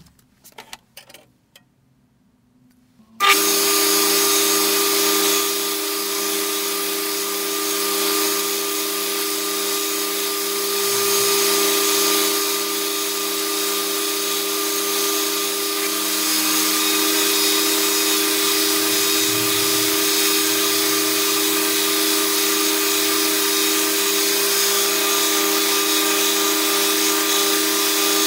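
A few light clicks, then an electric power tool cuts in about three seconds in and runs steadily with a constant hum and hiss.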